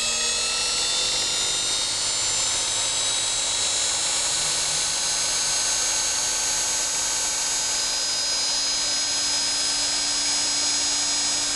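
Electric cut-off wheel saw running unloaded at idle. It finishes spinning up in the first second, its whine rising a little, then holds a steady high whine.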